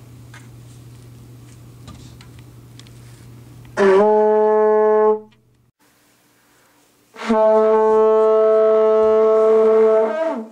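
Faint room hum, then two loud horn blasts on one steady low note. The first lasts about a second and a half; the second, a few seconds later, holds for about three seconds and bends down in pitch as it ends.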